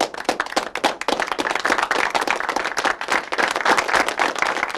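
Applause: a group of people clapping, dense and steady.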